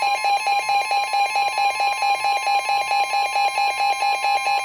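NOAA Weather Radio warning alarm: a steady tone near 1050 Hz, sounding together with the receiving weather radio's own rapidly pulsing alert beep. Together they announce a severe thunderstorm warning.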